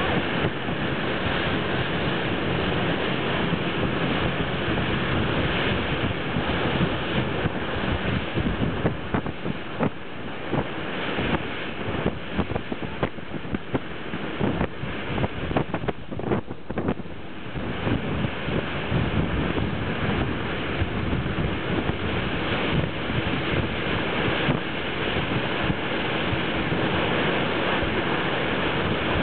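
Wind buffeting the microphone in uneven gusts over the steady rush of water churned up in a moving boat's wake.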